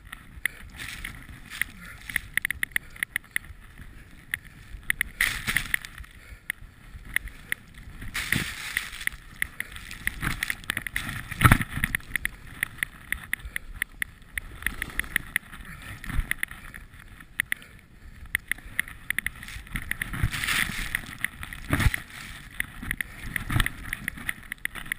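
Skis running through deep powder snow, a steady muffled rush with wind on the action camera's microphone, broken by many small knocks and clicks, with a sharper knock about eleven seconds in.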